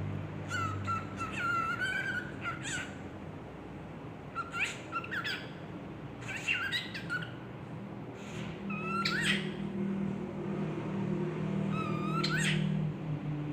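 Cockatiel giving about five short bouts of chirps, each ending in a sharp rising squeak, its mimicked kissing sound.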